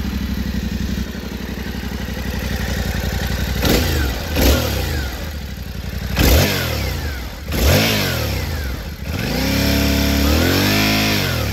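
Yamaha Ténéré 700's CP2 parallel-twin engine idling, then revved in a few short throttle blips and one longer rev held for about a second and a half near the end. No rattle or odd vibration noise comes from the freshly fitted aluminium skid plate.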